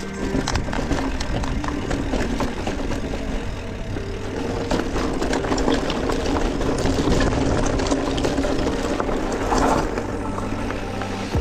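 Electric mountain bike riding over rough ground: many small clicks and rattles over a steady low hum.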